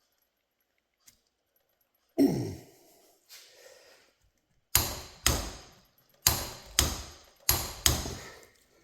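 Six sharp hammer blows on metal, in three pairs about half a second apart, each ringing briefly. A loud sigh comes about two seconds in, before the blows.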